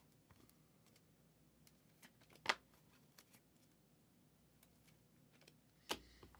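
Quiet handling of trading cards and packs, with a few sharp clicks: the loudest about two and a half seconds in, another near the end.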